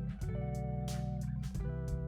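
Background music: a guitar-led track with a deep bass and a steady beat, its chord changing about every second and a half.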